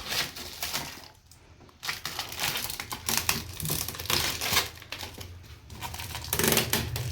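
Irregular crinkling, rustling and clicking handling noises, with a short lull about a second in and a low hum building underneath from about three seconds in.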